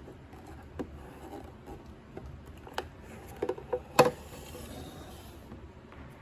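Scattered light taps and clicks of small objects being handled on a surface, irregular, with a small cluster and the loudest knock about four seconds in.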